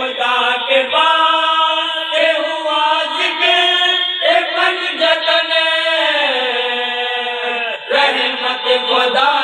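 Unaccompanied devotional chanting at a milad: a voice sings long held, melodic notes that bend slowly up and down. From about six seconds in, one long note slides downward, then breaks off briefly near eight seconds before the chant picks up again.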